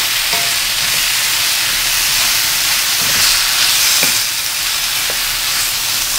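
Sliced bottle gourd (upo) with onion, garlic and tomato sizzling steadily in hot oil as it is sautéed and stirred with a wooden spatula in a metal pan, with a few light knocks of the spatula against the pan.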